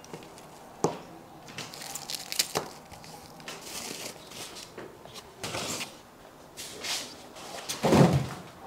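Unboxing packing material being handled: plastic wrap and paper rustling and crinkling, with scattered knocks of foam blocks and cardboard and a louder thump near the end.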